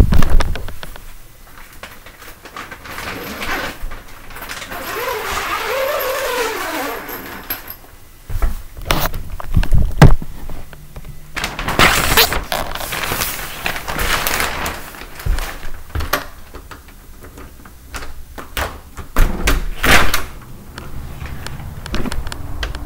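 Dishes being done: irregular knocks and clatter of plates and dishware, with a few longer noisy stretches and, a few seconds in, a brief pitched sound that rises and falls.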